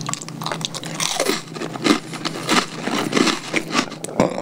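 A bite into a Golden Oreo sandwich cookie followed by repeated crisp crunching as it is chewed close to the microphone.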